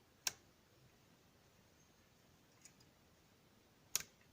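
Two sharp metallic clicks nearly four seconds apart, with a few faint ticks between, from a pick working the pins of an Abus Pfaffenhain V14 lock under tension.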